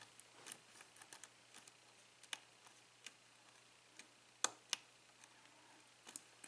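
Faint, irregular clicking of a lock pick and tension wrench working the pin stacks of an ABUS five-pin euro cylinder during single-pin picking, with two sharper clicks in quick succession a little past the middle.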